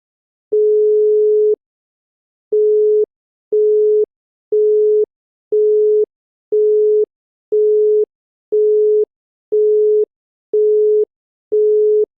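Italian telephone call-progress tones: the last one-second beep of the ringback tone, then the Italian busy tone, the same steady single-pitch tone pulsing evenly half a second on and half a second off, ten beeps, signalling that the call cannot be completed.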